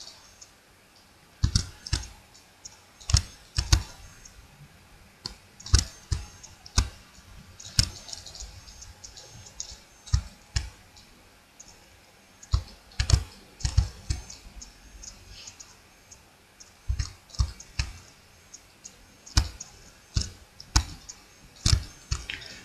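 Computer mouse and keyboard clicks while sculpting a mesh in 3ds Max: sharp single clicks at irregular intervals, often in quick pairs.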